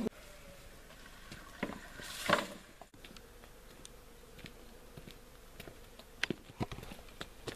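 Footsteps on a paved garden path: scattered soft steps over a quiet outdoor background, with one brief louder rustle about two seconds in.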